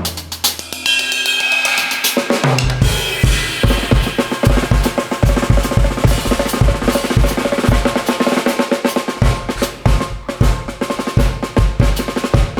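Drum kit played solo at speed: rapid strokes on snare and drums with cymbal crashes ringing early on, and fast, dense bass drum hits running under them.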